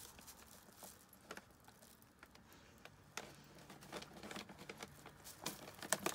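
Cat nosing through and chewing dog treats: small, irregular clicks and crunches that come thicker and louder in the second half.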